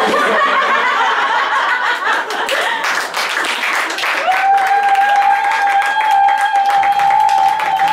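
A live audience breaks into applause and laughter all at once, a dense patter of clapping. About four seconds in, a single steady high note starts and is held over the clapping.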